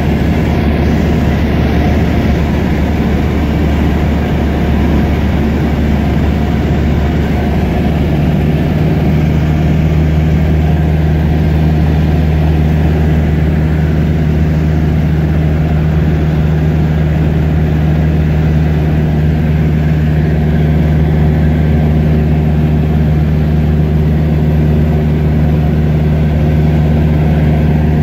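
Cessna 152's four-cylinder Lycoming engine and propeller droning steadily in flight, heard inside the cabin. About eight seconds in, a steady slightly higher tone joins the drone.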